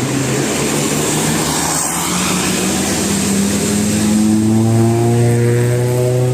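A bus engine revving, its pitch climbing steadily over the last three seconds, over a haze of traffic noise.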